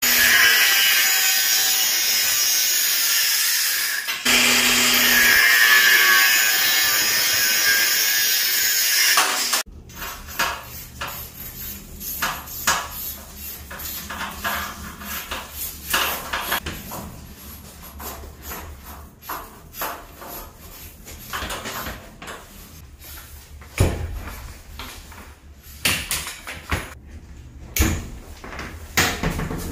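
A power tool running hard into material in two runs, about four and five seconds long, then stopping. After it, a cable being handled and pressed into place along a wall: rustling with scattered knocks.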